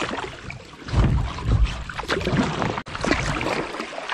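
Kayak paddle strokes: the blades dip and splash in shallow river water, with dripping between strokes. There is a low rumble about a second in.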